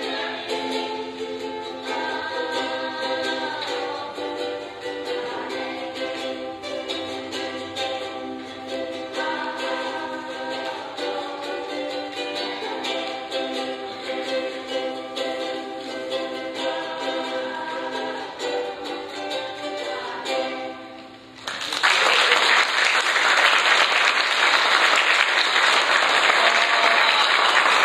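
Children singing a song to two strummed ukuleles. About three-quarters of the way through the song ends and an audience breaks into applause, the loudest part.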